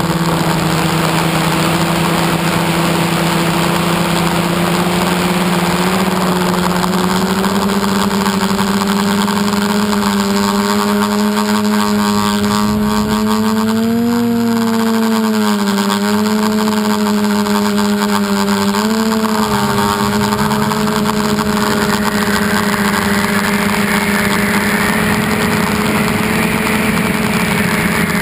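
Electric motors and propellers of an RC aircraft running in flight, heard from its onboard camera: a steady hum whose pitch rises briefly about halfway through and again a few seconds later, over a constant hiss.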